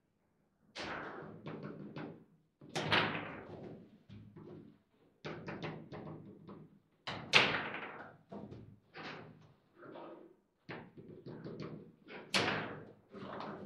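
Foosball table in play: irregular sharp knocks and clacks as the ball is struck and blocked by the figures on the rods, with the louder hard shots about three, seven and twelve seconds in.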